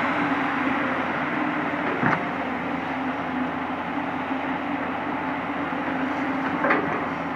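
Komatsu PC200 hydraulic excavator running steadily at working revs, with two short sharp knocks, about two seconds in and near the end.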